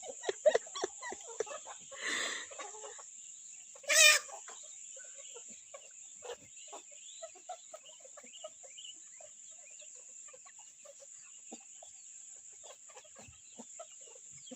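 Domestic chickens clucking, with one short loud squawk about four seconds in, then soft scattered clucks.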